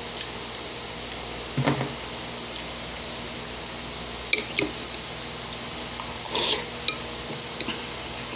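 Metal spoon clinking and stirring in a ceramic bowl of rice in water: a few short clicks and knocks, a brief scrape about six seconds in, over a steady low hum.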